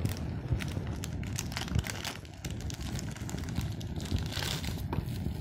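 Plastic packaging crinkling and crackling in irregular bursts as hands unwrap a phone charger, over a steady low rumble.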